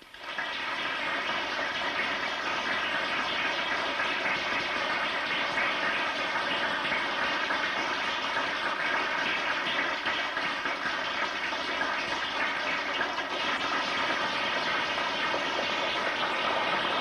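Eggs sizzling in a frying pan, starting abruptly and going on steadily with a dense crackle.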